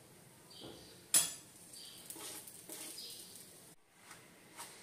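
A steel spoon clinking against steel dishes: one sharp clink about a second in, then softer knocks and taps.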